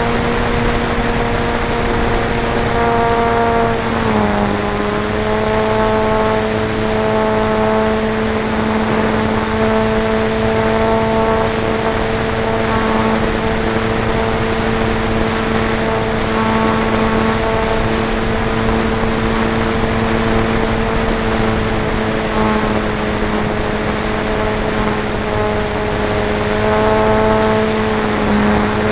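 Electric motor and propeller of a ParkZone Stinson RC plane, heard from its onboard camera: a steady whine whose pitch drops a little about four seconds in, over air rushing past the microphone.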